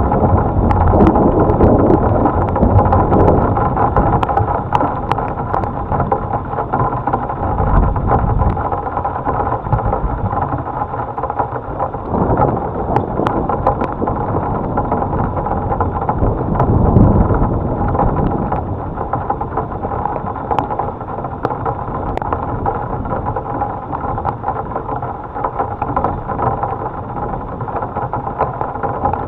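Thunderstorm soundscape: steady rain and wind noise on the microphone, with scattered drop clicks and several low rumbling swells, near the start and about 8, 12 and 17 seconds in.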